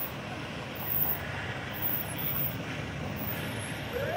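Nissan pickup trucks rolling slowly past, a steady engine and tyre noise on rough asphalt. Just before the end a rising whine starts.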